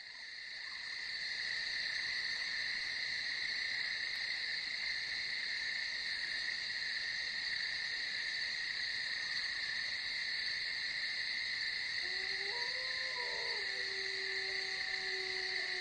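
A steady, high-pitched chorus of insect-like chirring fades in over the first second or two and then holds steady. About three quarters of the way through, a lower, long wavering tone joins in and shifts pitch in steps.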